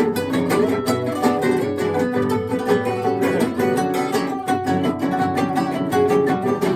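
Several acoustic guitars playing together, fast plucked notes over a steady rhythm.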